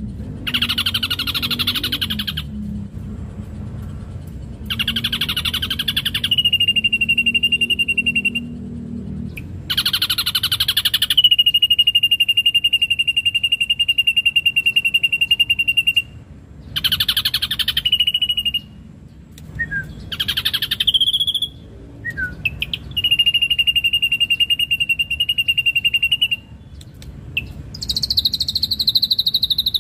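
Ashy drongo singing: several buzzy rattling phrases, each running into a long, steady high whistle, the longest held for about five seconds.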